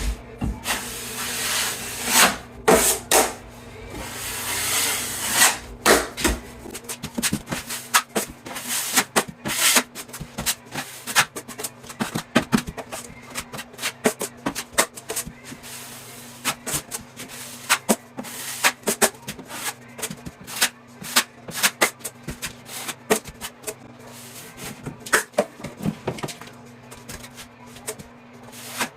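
Drywall knife spreading and scraping premixed joint compound across a wall: many short, irregular scrapes and clicks over a steady low hum.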